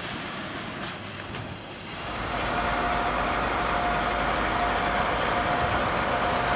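Freight wagons clicking faintly over the rails, then from about two seconds in the 2TE116U twin-section diesel locomotive comes up louder: a steady engine rumble with a thin high tone held over it as it approaches.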